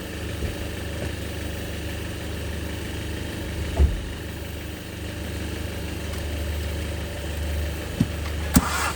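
Renault Kadjar's engine idling steadily on a jump start, with a few short sharp clicks over the low hum. The engine running on the jump pack points to the problem the mechanic names: a weak, old battery.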